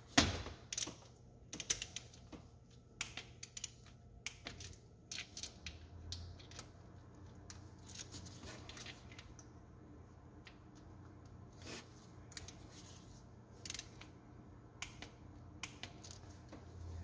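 Torque wrench ratcheting in short runs of quick light clicks while tightening the timing chain tensioner bolts to 72 inch-pounds, with scattered taps of tools on metal.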